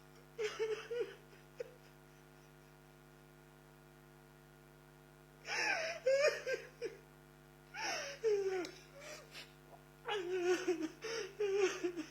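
A high-pitched voice in several short bursts, one near the start and three more in the second half, over a steady low electrical hum.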